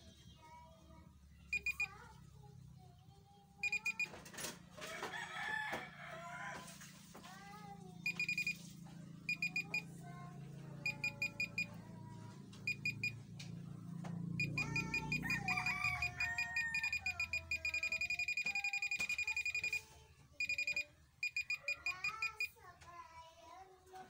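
GP-Pointer pinpointer metal detector beeping with a fast, high-pitched pulsed alarm as a coin is moved to its tip, the sign that it is detecting the metal. The beeping comes in short bursts at first, then runs almost without a break for about five seconds past the middle, and ends in a few more short bursts.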